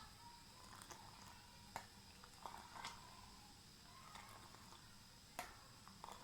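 Near silence: faint room tone broken by a few soft clicks, the clearest about two, three and five seconds in.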